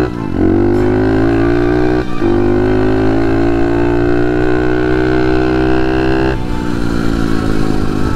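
Pit bike's single-cylinder engine running under throttle while riding. The revs dip and climb again at a gear shift at the start and another about two seconds in, then hold steady and slowly rise. The engine note falls to a lower, quieter run about six seconds in as the throttle is eased off.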